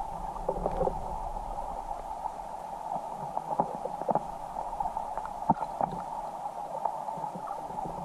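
Stream water heard through an underwater camera: a steady, muffled rushing with scattered small clicks and pops.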